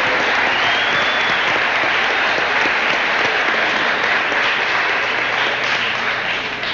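Audience applauding steadily, dying down slowly near the end.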